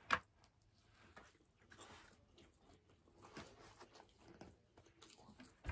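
Faint chewing and mouth sounds of people eating a fast-food breakfast sandwich and hotcakes, with a single short click right at the start.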